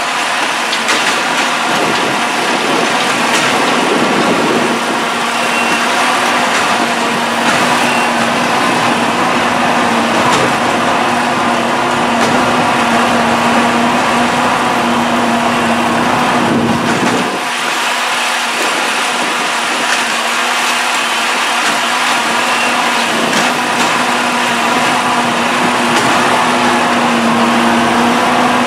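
Diesel engine of a rail-mounted track-maintenance machine running steadily under load, with a steady humming tone over the engine noise and a brief dip in the sound a little past halfway.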